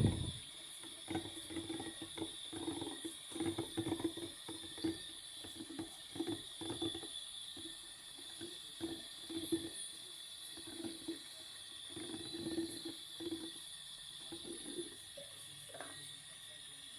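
Maytag washing machine running its delicate cycle, agitating the wash load in water. Its motor hums in short, irregular pulses about once or twice a second, with soft sloshing and knocks.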